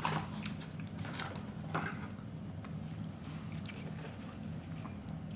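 A person chewing food, with a few short soft crackles about a second and two seconds in, over a steady low hum.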